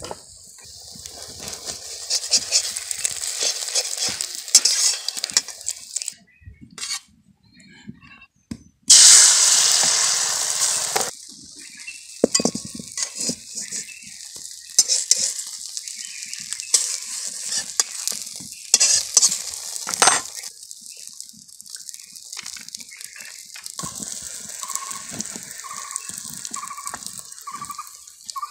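Beaten egg frying in oil in an iron wok: a steady high sizzle with metal spatula scrapes and clicks against the pan. About nine seconds in, a loud rush of sizzling lasts about two seconds, as from fresh egg going into the hot oil.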